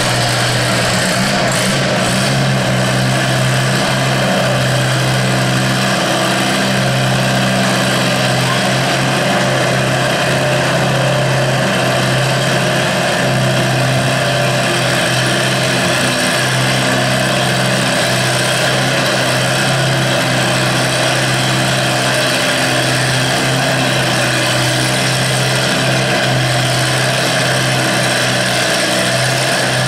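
Antique Allis-Chalmers tractor engine running steadily under load as it pulls a weight-transfer sled down the dirt track.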